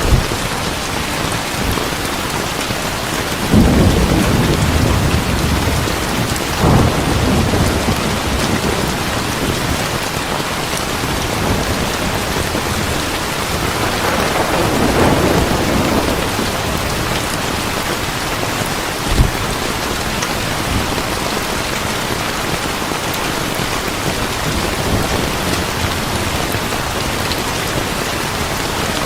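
Heavy rain falling steadily, with rolls of thunder rumbling low several times: a strong one about three and a half seconds in, another soon after, and a broader one about halfway through. A single short sharp crack stands out later on.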